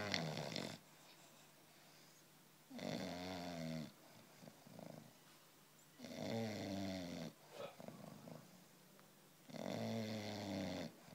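Five-month-old English bulldog puppy snoring in its sleep: a loud snore about every three seconds, four in all, with softer breaths between them.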